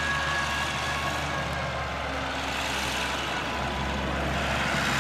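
1953 Oliver 88 diesel tractor's six-cylinder engine running steadily as the tractor drives, with a thin steady whine above the engine note.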